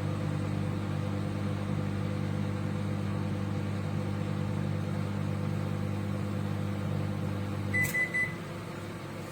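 Microwave oven running with a steady electrical hum, which cuts off about eight seconds in. A few short high beeps follow at once, the signal that the heating cycle has ended.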